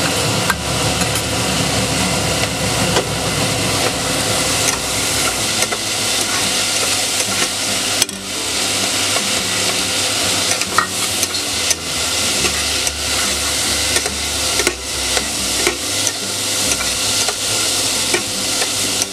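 Metal spatula stirring and scraping soaked chana dal around the base of a pressure cooker, with scattered clicks against the metal. The lentils sizzle in hot oil, a steady hiss under the scraping.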